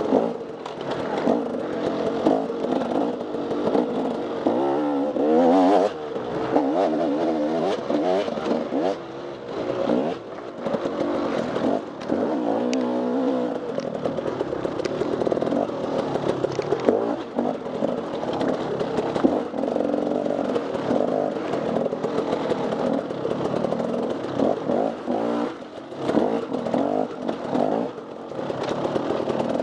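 Off-road motorcycle engine revving up and down without pause as it is ridden hard. Frequent knocks and clatter run through it.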